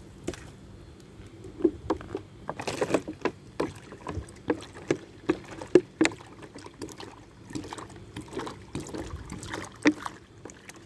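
Water pouring from a plastic bottle into a plastic bowl, glugging out in a string of short gulps about two or three a second and splashing into the water already in the bowl.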